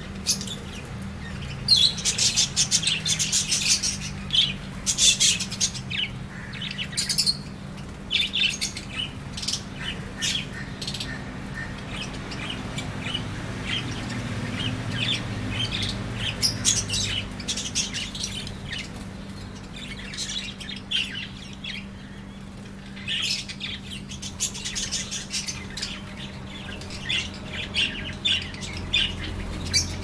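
A flock of budgerigars chirping and chattering in quick, high calls. The calls are thickest in the first several seconds and again near the end.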